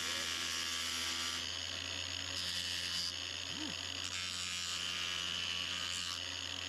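Angle grinder running steadily with a high whine as short peeled wooden sticks are pressed against its abrasive disc to shape their ends, the grinding texture changing a little as the wood touches and lifts.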